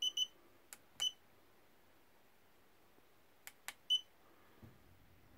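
Tacklife handheld laser distance measurer beeping as its buttons are pressed to take a measurement: two quick beeps at the start, one about a second in and one near the end, with faint button clicks between.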